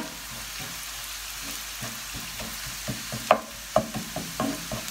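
Sliced onions sizzling in hot oil in a non-stick frying pan, stirred with a wooden spoon. The spoon gives short taps and scrapes against the pan, coming more often in the second half, the loudest knock a little after three seconds in.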